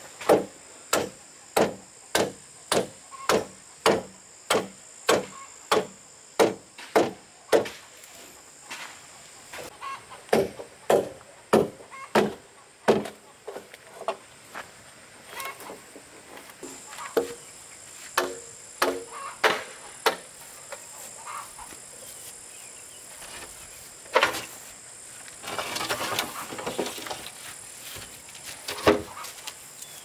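Bamboo being chopped with a blade: sharp, ringing strikes about two a second for the first dozen seconds, then slower and irregular.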